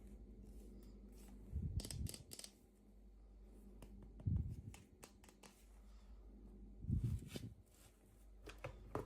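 Hands opening toy packaging: four short bouts of snipping, rustling and clicks over a low hum.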